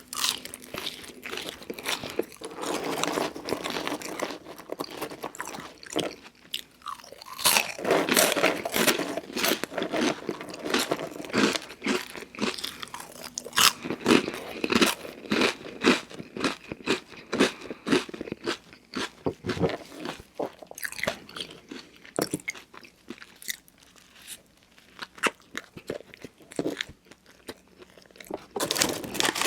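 A person biting and chewing crunchy fast food close to the microphone: a long irregular run of sharp crunches.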